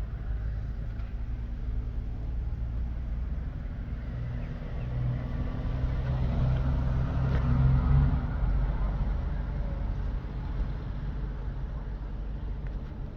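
A motor vehicle's engine: a low rumbling hum that swells to its loudest about eight seconds in and then eases off, as of a heavy vehicle moving past.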